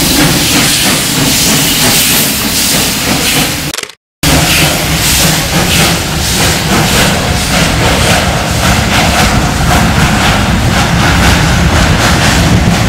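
Ol12 steam locomotive pulling a passenger train away: hissing steam and exhaust chuffs over the rumble of the running gear and coaches. The sound drops out briefly about four seconds in; after that the exhaust beats come in an even, quick rhythm as the train moves off.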